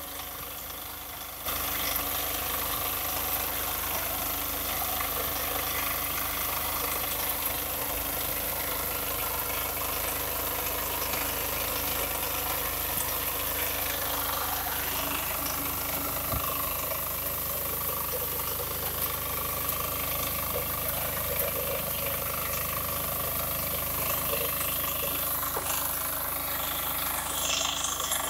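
Engine of a walk-behind crop reaper running steadily under load while its reciprocating cutter bar and conveyor cut through a standing crop. It jumps louder about a second and a half in, then holds steady.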